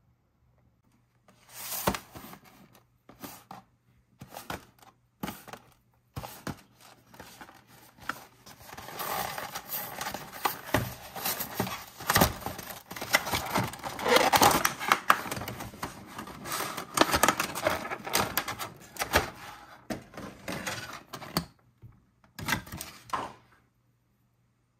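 Plastic toy packaging being opened and unwrapped by hand: an irregular run of crinkles, tears and small clicks that is sparse at first, busiest in the middle, and stops shortly before the end.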